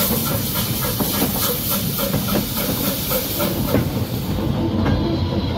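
Small narrow-gauge steam locomotive hauling an open wagon: steam hissing over a quick, regular beat from the engine and the wagon's running gear on the rails. The high hiss fades near the end.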